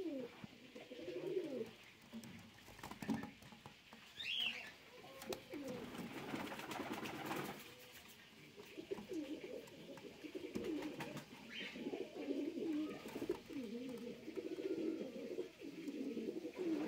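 Domestic pigeons cooing again and again, low wavering coos that come thickest in the second half. Two short higher calls cut in, one about four seconds in and one past the middle, and there is a brief hiss of noise around six to seven seconds.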